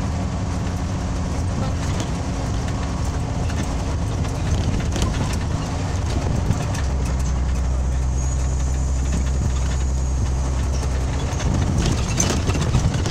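Scania OmniLink CL94UB city bus heard from inside the passenger cabin while driving: steady engine drone and road noise. A deeper, steady engine note holds for a few seconds in the middle, and some rattling clatter comes in near the end.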